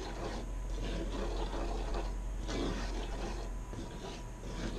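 Wooden spoon stirring a thick cream sauce in a cast iron skillet, swishing and scraping through it in repeated strokes.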